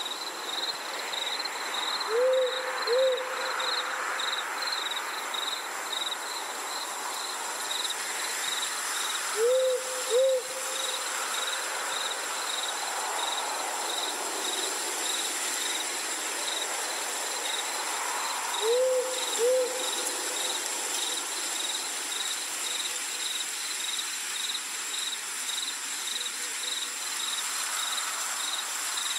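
Night ambience: an owl hoots in quick pairs three times, about every eight or nine seconds, over steady cricket chirping and a soft hiss.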